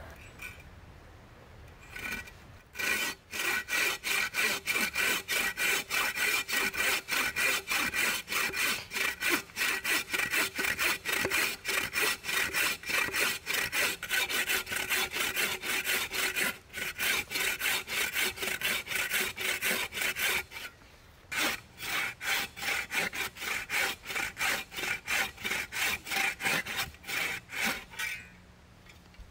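Metal-framed folding bow saw cutting through a log in quick, even back-and-forth strokes. The sawing breaks off briefly about two-thirds of the way through, then starts again, and it stops shortly before the end.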